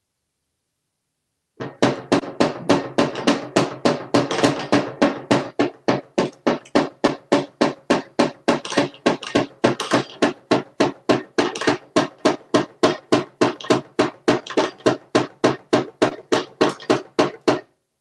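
Electric flopping toy fish slapping its tail against the bottom of a wooden drawer: a steady knocking about three times a second that starts about a second and a half in and stops just before the end.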